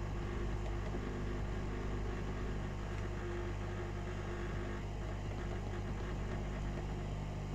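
A small electric appliance humming steadily, with no change in pitch or level.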